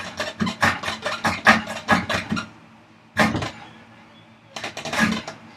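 A hand tool working hard wood in a quick run of short scraping strokes, widening an opening in a vise chop. The strokes stop a little before halfway, one more comes near the middle, and another short run follows near the end.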